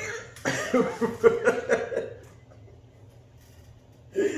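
A person laughing: a burst of quick, rhythmic chuckles lasting about a second and a half, then a pause before voice sounds return near the end.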